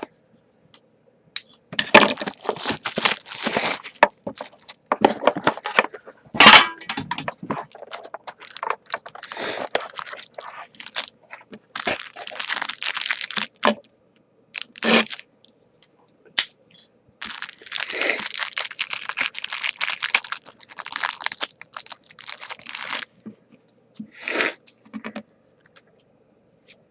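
Sealed trading-card box being unwrapped and opened: plastic shrink-wrap torn off and its packaging crinkled and crackled, in repeated bursts of a second or two with short pauses between.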